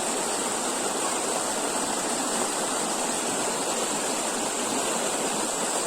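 Steady rushing of water from a small waterfall and stream, an even hiss with no breaks.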